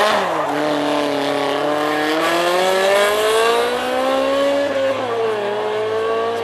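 Rally car engine accelerating hard, its note climbing steadily through the gears. The pitch drops sharply at the start and again about five seconds in, at upshifts.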